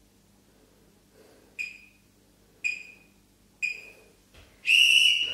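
Interval timer counting down: three short, high beeps about a second apart, then a longer, louder beep near the end that marks the end of the timed hold.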